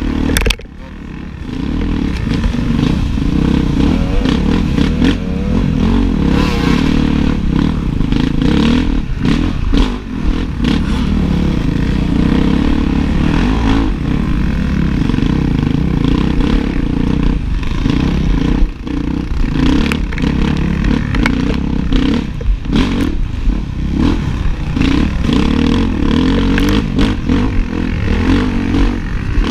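Enduro dirt bike engine running hard, revving up and down as the throttle is worked, with clatter and knocks from the bike over rough ground. The engine note drops away briefly about half a second in and dips twice more later.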